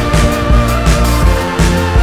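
Background music: a band track with a steady drum beat.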